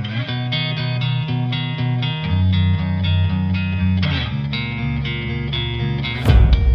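Background music led by plucked guitar, with a bass line and a steady rhythm; a heavy low thump comes near the end.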